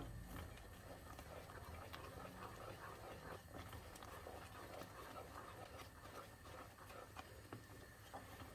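Faint sound of a wooden spoon stirring thick Turkish delight paste of starch and sugar syrup in a pan as it cooks and thickens.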